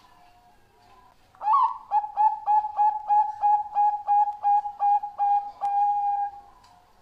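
Zebra dove (Bangkok perkutut song strain) singing. A rising opening note comes about a second and a half in, then a fast run of short, clipped coos at about three a second, ending on a longer held coo. Fainter cooing sits in the background before and after the song.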